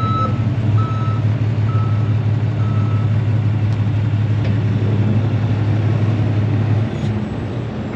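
A vehicle's reversing alarm beeping about once a second, fading out about three seconds in, over the steady low rumble of an idling engine that drops away near the end.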